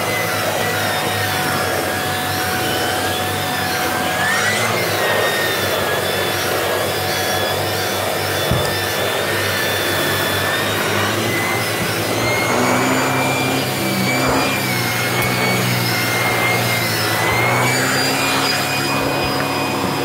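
Shark DuoClean Powered Lift-Away upright vacuum cleaner running steadily, its powered brush head being pushed over carpeted stair treads. A constant motor whine drifts slightly up and down in pitch as the head moves.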